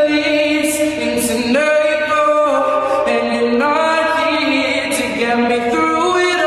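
Music: a song with long, held, wordless sung notes in layered voices, moving to a new pitch about once a second.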